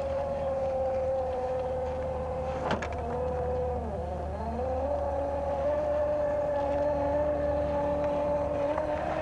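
Element RC Sendero HD crawler's electric motor and gearbox whining steadily under low throttle as it climbs rocks. The pitch dips around four seconds in, then settles again. One sharp knock comes near three seconds in.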